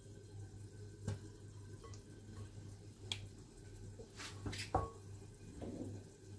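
Scattered light knocks and clicks of hands and chicken drumsticks against a glass mixing bowl while the pieces are dredged in flour, with a cluster of knocks a little past the middle, one with a brief ring, over a steady low hum.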